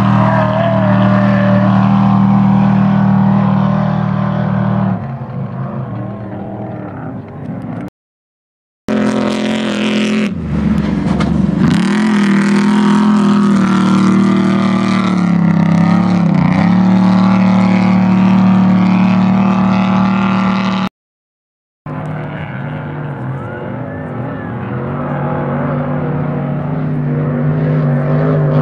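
Off-road desert race trucks running hard past one after another, engines holding high revs with dips and climbs in pitch as they lift off and accelerate. The sound cuts out to silence twice, briefly, between shots.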